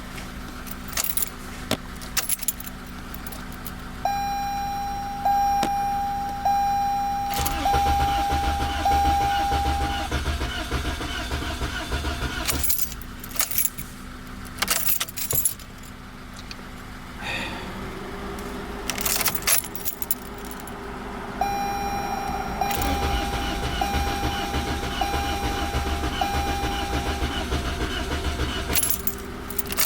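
A 2021 Toyota Corolla's 2.0-litre four-cylinder engine cranks on the starter motor for about five seconds, twice, without catching: a crank-no-start with a replacement ECM fitted. Before and during each try, a dashboard warning chime beeps about once a second, with some clicking and jingling.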